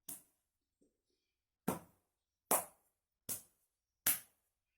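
Hand claps beating out a rhythm for a partner to copy: one clap, a pause of over a second, then four claps evenly spaced just under a second apart.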